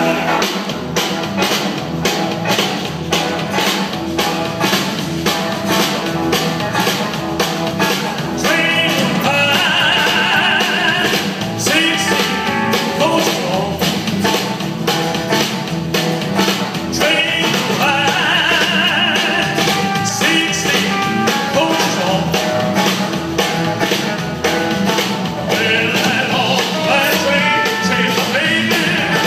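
Live rock and roll band playing an instrumental passage: guitars, bass, drum kit and congas on a fast, steady beat, with a high lead line that comes in three short runs.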